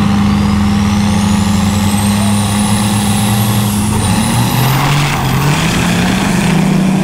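Drag-racing pickup truck running hard down the strip: a loud engine drone with a high whistle rising in pitch over it. Both dip together about four seconds in, then climb again.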